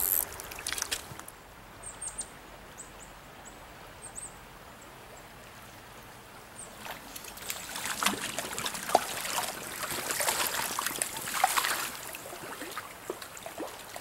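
Stream water running and trickling, with irregular splashes in the water that grow louder about seven seconds in.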